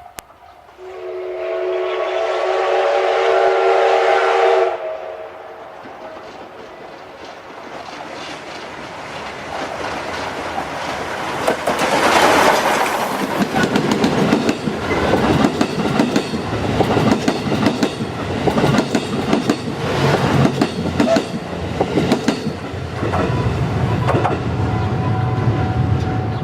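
D51 steam locomotive's whistle, a several-toned chord held for about four seconds. The train then comes up and passes, loudest about twelve seconds in, followed by the coaches' wheels clicking over the rail joints in a steady rhythm over a low rumble.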